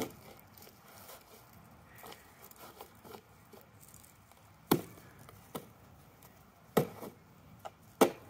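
Southern ground hornbills striking a cardboard box with their heavy bills: scattered sharp knocks, with three loud strikes in the second half and fainter taps between.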